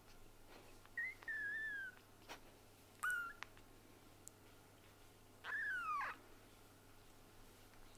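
A very young kitten mewing three times while held in a person's hands: high, thin cries, the first about a second long, the second short, the third falling in pitch.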